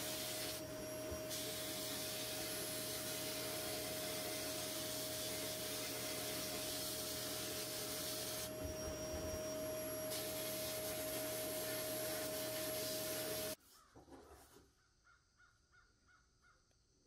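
Sandblast gun in a blast cabinet hissing steadily with a thin whistle as it blasts rust off a Daisy airgun's cocking lever. It cuts off suddenly about 13 seconds in, leaving only faint sounds.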